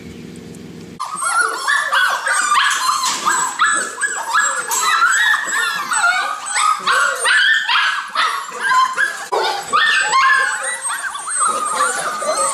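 A litter of young puppies whining and yipping all at once, many high-pitched cries overlapping in a constant chorus. It starts about a second in, cutting off a low hum.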